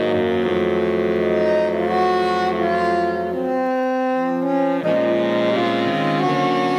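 Jazz big band horns, saxophones and brass, playing slow, sustained chords together, the harmony shifting every second or two.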